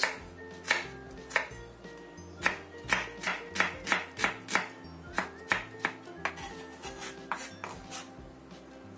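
Kitchen knife chopping shallots on a wooden cutting board: sharp knife strikes, irregular, a few per second and bunched in quick runs. Quiet background music plays underneath.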